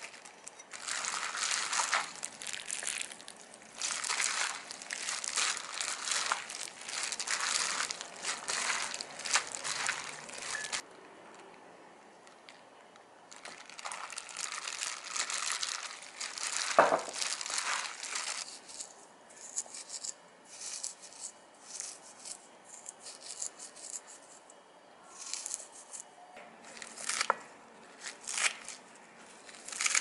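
Cooked noodles being tossed and mixed by hand with red chili sauce in a stainless steel bowl: wet rustling mixing noise in two long runs of several seconds, with one sharp knock about 17 seconds in, then scattered lighter clicks and squishes.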